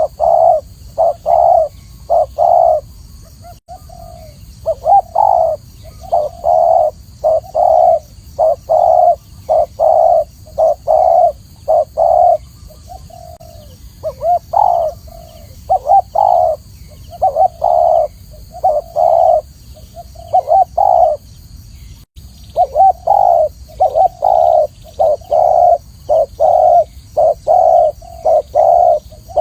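Spotted dove cooing: short, low coo notes repeated about twice a second in phrases, with brief breaks between phrases.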